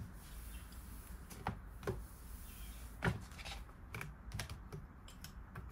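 A series of light, irregular clicks and taps, about one every half second in the second half, with the loudest about three seconds in.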